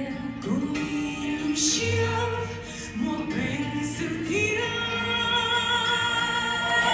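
Background music with a singing voice: sliding, held sung notes over a steady accompaniment, building to a long held note that cuts off suddenly at the end.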